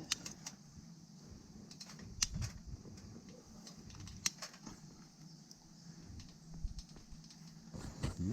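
Newly lit campfire kindling catching, giving faint, scattered crackles and pops.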